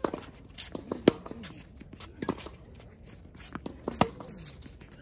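Tennis rally on a hard court: rackets striking the ball and the ball bouncing, a sharp pop every second or two, the loudest about a second in, with a racket hit about four seconds in.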